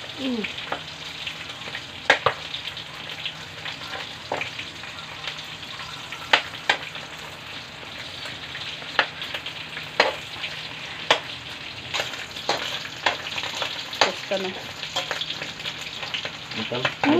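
Meat frying in oil in a steel wok: a steady sizzle, with scattered sharp clicks as the pieces are stirred with a spatula.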